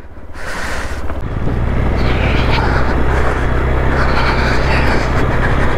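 Motorcycle riding over a rough, rocky gravel track, its engine holding a steady low hum from about a second in, under wind noise on the microphone.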